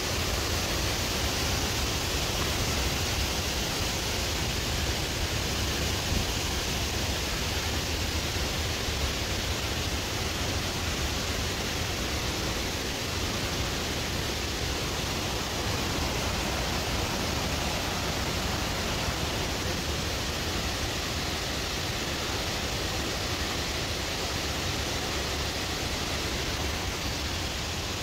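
Waterfall rushing: a steady, unbroken noise of falling water with a deep rumble underneath.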